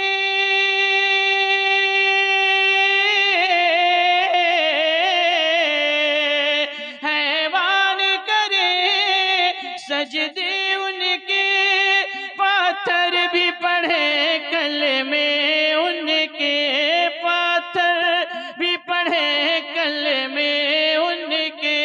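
A man's solo voice singing a naat through a microphone. He holds one long steady note for about three seconds, then runs into a long, richly ornamented melody with no clear words, bending and trilling the pitch.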